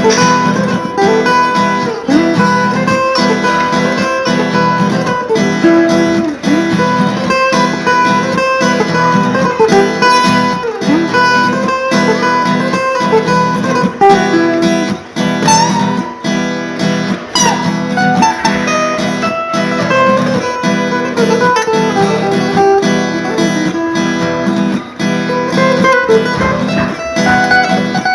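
Guitar playing a lead solo melody, with some notes bent in pitch, over steadily strummed chords.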